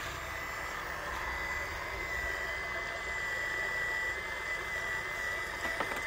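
Radio-controlled model excavator working, its electric motors giving a steady high whine that strengthens about two seconds in as it swings a loaded bucket of dirt over a dump truck. A brief click near the end.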